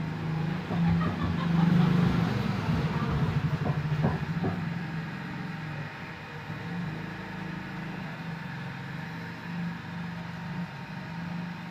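Honda Mega Pro's air-cooled single-cylinder four-stroke engine running at idle, a steady low hum with a pulsing beat. It is louder over the first few seconds, then settles steadier and quieter.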